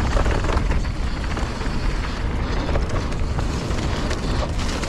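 Wind buffeting a POV action camera's microphone as a mountain bike rolls downhill over loose, wet dirt, with the bike rattling in many small knocks and clicks.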